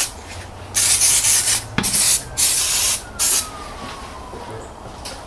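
Aerosol brake and clutch cleaner sprayed onto brake parts in about four short hissing bursts, each starting and stopping sharply, to wash off brake dust.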